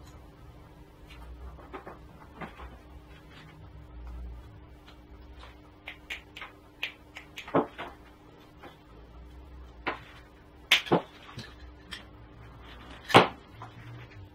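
Scattered clicks and snaps of hand tools on coax cable ends as connectors are fitted, with a few sharper snaps in the second half, over a faint steady hum.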